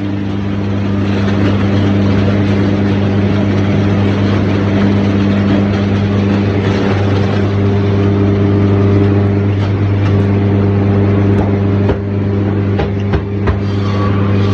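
Sawmill machinery running with a steady, loud low hum over a rushing noise, and a few short knocks near the end.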